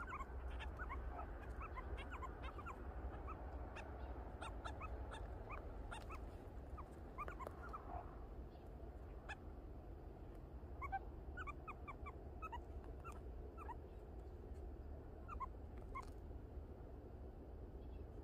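Meerkats making short, high peeping calls, many scattered irregular peeps from the group, over a steady low rumble.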